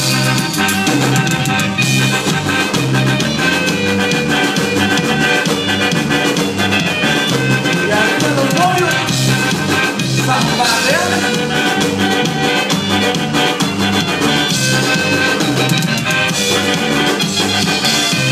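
Live band playing Latin dance music on keyboards, electric bass and drum kit, with a repeating bass line under the beat.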